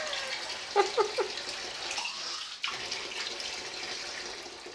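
Tap water running steadily into a sink, with three short pitched voice sounds about a second in and a sharp click a little past halfway.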